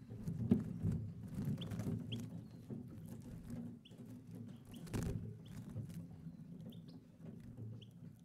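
European goldfinches in an aviary giving short, high, rising call notes now and then, with sharp clicks and flutters of the birds moving about the perches and cage, over a low rumble.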